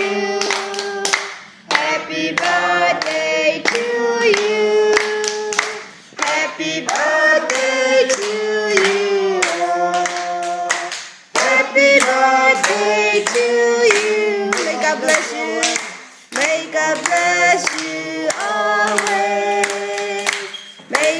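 A small group of family voices singing a birthday song together, clapping along. The song comes in phrases of about four to five seconds with short breaks between them.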